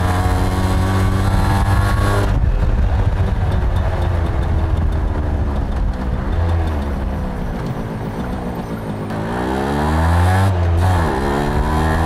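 Suzuki AX100's single-cylinder two-stroke engine and exhaust, heard from the rider's seat while riding. It holds high revs at first, then the revs drop about two seconds in and sag lower. About nine seconds in they climb again, dip briefly, then rise once more.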